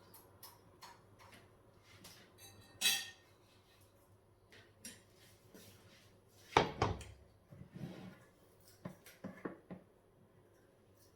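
Kitchen utensils and a frying pan clattering: scattered knocks and clinks, the loudest about two thirds of the way through, followed by a quick run of smaller ones.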